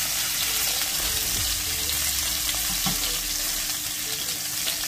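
Hanwoo ribeye steak and pieces of rib cap sizzling in butter in a hot frying pan: a steady, even frying hiss, with one small knock about three seconds in.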